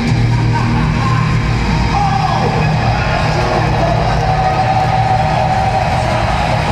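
Heavy metal band playing live through a stadium PA, heard from the stands: electric guitars over a steady low bass note, with a long held note wavering above from about two seconds in.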